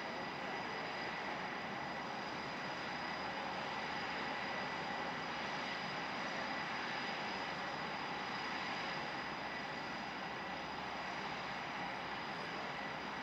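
Several Blue Angels F/A-18 Super Hornet jet engines running while parked, a steady rush with a constant high-pitched turbine whine over it.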